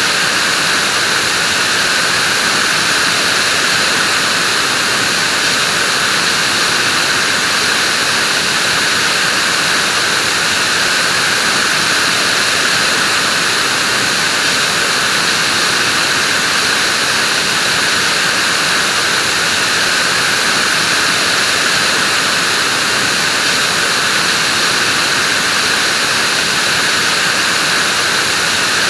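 Vacuum cleaner running steadily: a constant rushing noise with a brighter hiss on top, unchanging in pitch and level.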